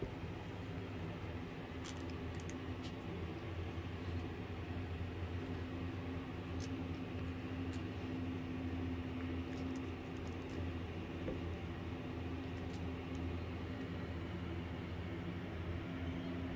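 Steady low mechanical hum over a faint even hiss, with a few faint ticks now and then.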